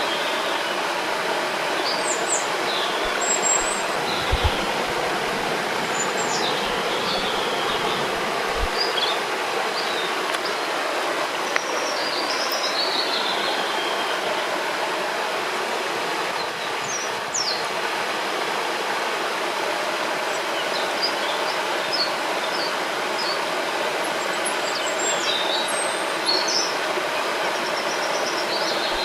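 Rushing river water, a steady full sound, with small songbirds chirping and calling on and off above it. A few soft low thumps come in the first few seconds.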